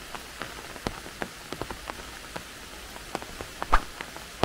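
Steady rain, a soft even hiss with single drops landing close by several times a second at irregular intervals.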